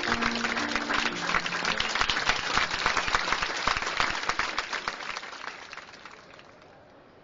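Applause fading away over the last couple of seconds, with a few low notes from the band stepping down underneath during the first two seconds as the song ends.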